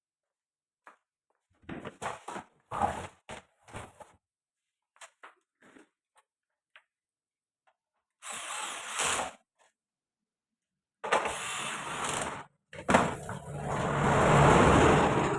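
Small hard parts clicking and knocking together, then a small electric tool running in three bursts of one to two seconds, the last the longest and loudest.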